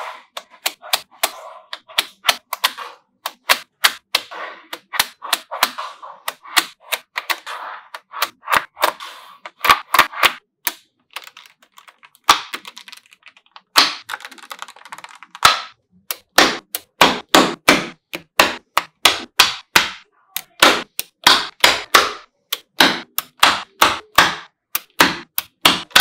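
Small magnetic balls clicking and snapping together as blocks and strips of them are laid onto a flat panel of balls: a long run of sharp, irregular clicks with a light rattle between them, coming thicker and louder in the second half.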